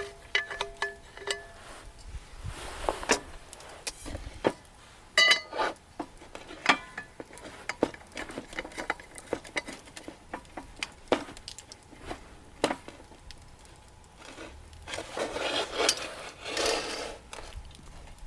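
Irregular clinks and knocks of cookware and camp gear being handled, some ringing briefly, with soft rustling or scraping around three seconds in and again near the end.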